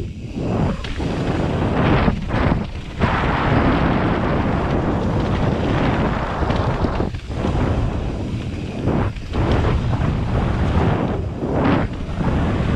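Wind buffeting the microphone of a mountain bike descending a dirt and gravel trail at speed, mixed with the rumble and rattle of the tyres and bike over the rough ground. The roar drops briefly several times.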